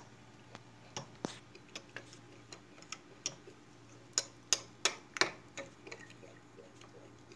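Metal spoon clinking against a small glass jar while stirring a thick cornstarch, egg-yolk and sugar paste: irregular clinks, with a quick run of louder ones a little past the middle.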